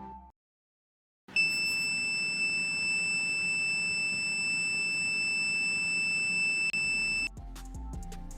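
Buzzer of a homemade Arduino Nano vibration-sensor alarm sounding one steady, high-pitched tone for about six seconds, set off by a touch on the vibration sensor. It starts about a second in and cuts off suddenly.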